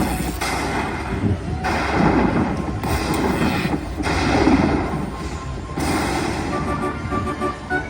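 Slot machine game sound effects: a run of deep booms about every second or so over the game's music, with short electronic beeps near the end.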